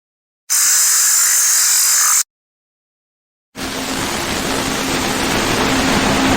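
Two separate samples of TV-style static hiss with silence between them. A short, bright burst starts about half a second in and stops abruptly. A longer one fades in past the middle, grows a little louder with a faint steady hum underneath, and cuts off near the end.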